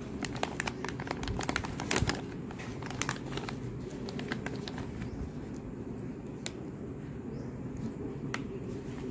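Plastic food wrapper crinkling as it is pulled open and a sticky rice burger in a plastic tray is slid out. The crinkles come thick for the first few seconds, then only now and then, over a steady low background hum.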